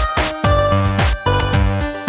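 Instrumental electronic music with a beat and deep bass notes.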